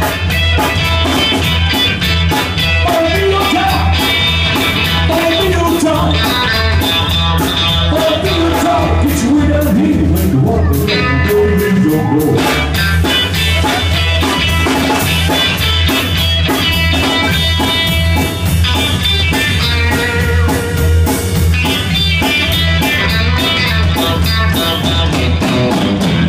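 Live band playing blues-rock: electric guitar, a steady bass line and singing, with the music stopping sharply at the very end.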